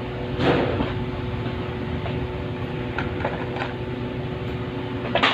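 Hot air rework station's blower running with a steady hum, with a few light clicks and handling rustles over it.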